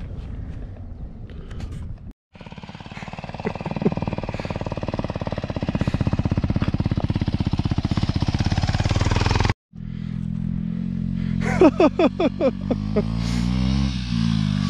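Motorcycle engines running, broken by two sudden cuts: first a fast, evenly pulsing engine note, then a lower-pitched engine with a quick run of about six short, loud sounds that rise and fall in pitch.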